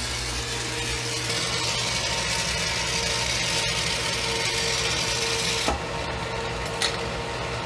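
Glassworking bench torch burning with a steady hiss over a low steady hum. About three-quarters of the way through, the hiss drops abruptly with a click as the flame turns large, bushy and yellow.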